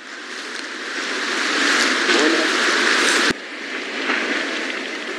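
A rushing noise that swells for about three seconds, breaks off suddenly, then goes on lower and steadier.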